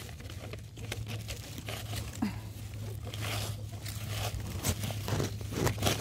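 Small fertilizer packet crinkling as fertilizer is shaken out into a hole in the soil, then hands scraping and raking loose earth back over it, with irregular rustles and small scrapes.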